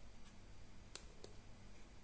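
Two faint clicks about a quarter second apart from a thumb pressing a button on a fog machine's handheld wireless remote, over a faint low steady hum.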